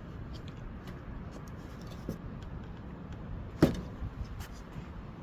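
Light clicks from parts being handled and one sharp knock about three and a half seconds in, over a steady low hum, as the mower's fuel tank is taken off.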